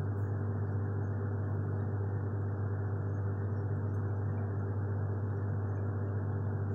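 A steady low hum with a hiss under it, unchanging throughout.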